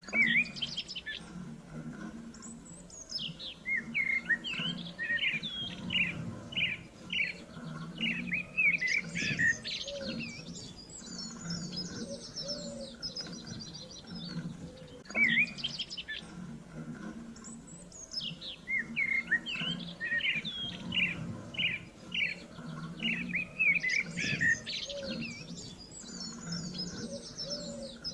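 Songbirds chirping: runs of short sweeping calls and fast high trills, with the same sequence coming round again about halfway through.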